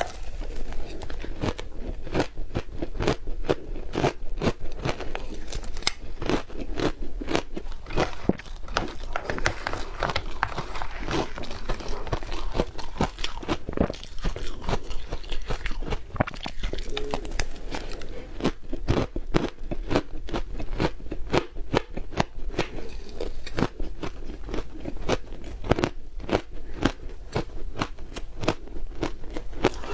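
Close-miked crunching and chewing of yellow powdery ice, a dense, unbroken run of crisp crackles.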